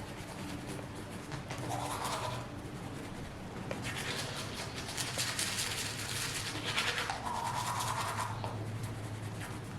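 Brushing or scrubbing in quick back-and-forth strokes, coming in three spells of a second or two each.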